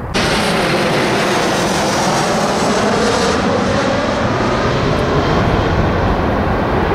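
Jet airliner engines at takeoff power, a loud, steady rushing noise that cuts in abruptly at the start and holds level throughout.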